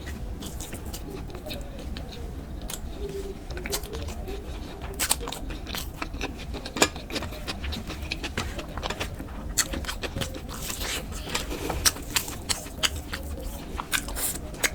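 Close-miked sounds of a person eating a khichdi and chicken curry meal: chewing and wet mouth smacks, with many short sharp clicks at an irregular pace.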